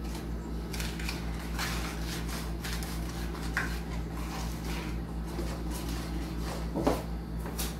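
Spoon gently stirring cake batter in a mixing bowl to fold in baking powder: soft scrapes and taps about once a second, over a steady low hum.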